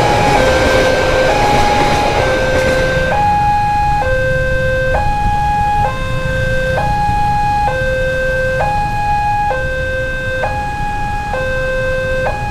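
Railway level-crossing warning alarm sounding a two-tone high-low signal, switching pitch about once a second. A passing train's rumble fills the first few seconds and fades out as it clears the crossing, leaving the alarm clear over road traffic.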